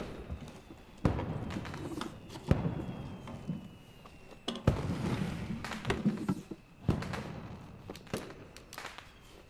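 Four heavy thuds, one and a half to two seconds apart, each dying away over about a second.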